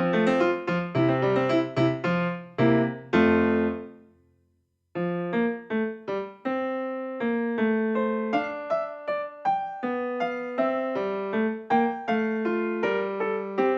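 Background piano music, a run of single struck notes that stops for about a second, roughly a third of the way in, then starts again.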